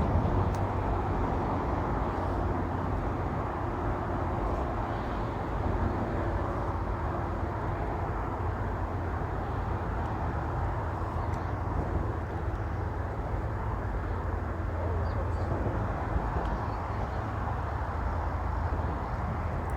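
Steady outdoor background rumble, a deep low hum with a hiss over it and no distinct events.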